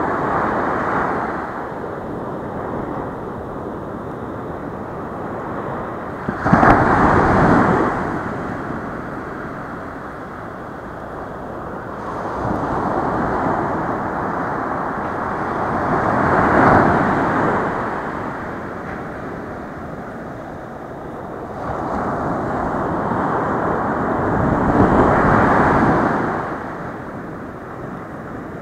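Small ocean waves breaking and washing up a sandy beach, the surf swelling and fading about every eight to nine seconds, with a steady hiss of water between. The loudest is a sudden crash about six and a half seconds in.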